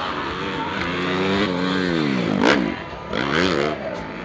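Motocross bike engine revving hard as it races past close by. The pitch climbs, then drops sharply at the loudest point about two and a half seconds in, and the engine revs up and falls away once more shortly after.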